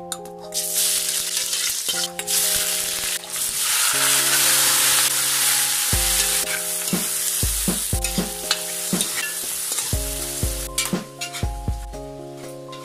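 Squid pieces sizzling in hot oil in a wok while being stirred. The loud sizzle starts suddenly about half a second in and eases off toward the end, with a few clinks of the utensil against the pan.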